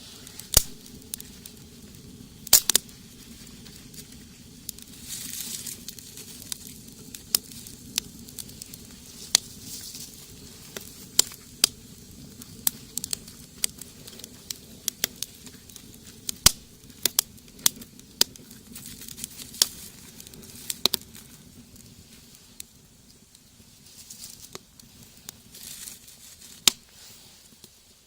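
Wood fire burning in a rocket stove, crackling with irregular sharp pops over a steady low background.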